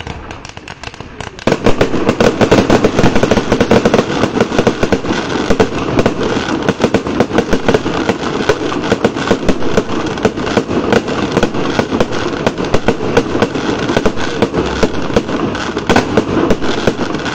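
Fireworks display firing a dense barrage: aerial shells launching and bursting in rapid, overlapping bangs and crackles, several a second. It thickens sharply about a second and a half in and goes on without a break.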